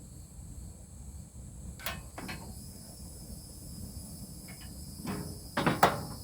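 Long grill lighter being clicked while lighting charcoal: several sharp clicks, the loudest pair near the end, over a low rumble.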